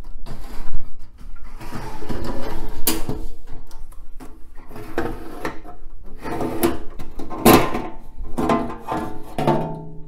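Sheet-metal cover of a 1990s desktop computer case scraping and clunking as it is slid forward off the steel chassis, with background guitar music.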